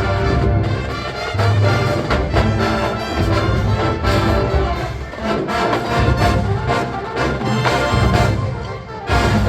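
Marching band playing a funk arrangement at full volume: brass section over steady drums and low brass.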